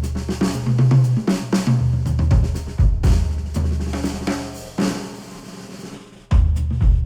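Pop music playback led by a drum kit (kick, snare, hi-hat and cymbals), heard through headphones picked up by microphones. The mix thins and drops away near the end, then the full beat comes back suddenly.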